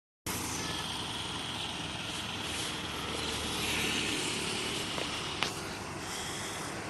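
Steady rumble and rail noise of a train running, with a sharp click about five and a half seconds in.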